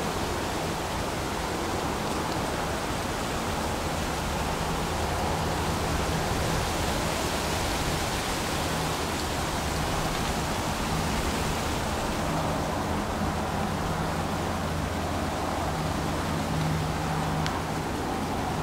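Steady rushing noise of wind through the woods, with a faint low hum underneath.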